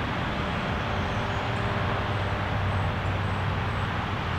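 Steady outdoor background noise: a low rumble under an even hiss, with no breathing heard.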